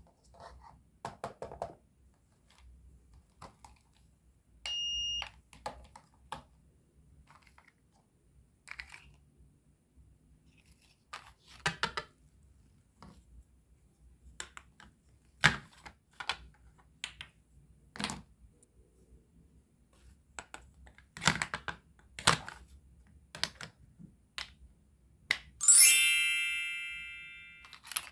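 Scattered clicks and taps of plastic and wooden toy food and toy kitchen pieces being handled, with a short electronic beep about five seconds in. Near the end a bell-like ding, the loudest sound, rings out and fades over about two seconds.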